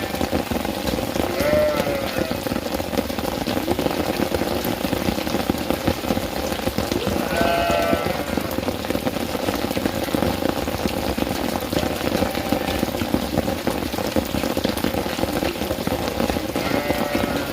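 Steady rain falling, with a goat bleating three times: shortly after the start, in the middle, and near the end.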